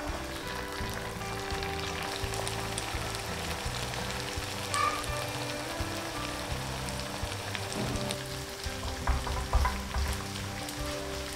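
Hot cooking oil sizzling and crackling in a pan as the sambal cooks, with a few louder knocks near the end. Soft background music plays underneath.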